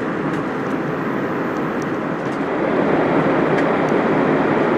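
Steady in-flight cabin noise of an Airbus A319 airliner: an even rushing noise that grows a little louder about halfway through.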